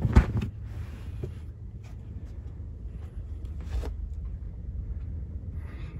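A large Turkish rug flipped over and dropped flat onto a stack of rugs: a soft thud and swish of the pile right at the start, then faint rustling of the carpet being handled over a low steady hum.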